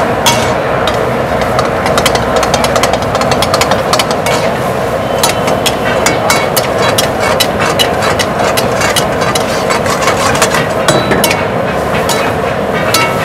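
A metal spatula repeatedly scraping and clanking against a karahi wok as chicken karahi is stir-fried, over a steady rushing noise from the burner and the sizzling pan.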